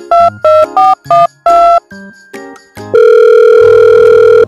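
Telephone keypad tones: five quick two-tone beeps as a number is dialed, then a steady call tone starting about three seconds in, over faint background music.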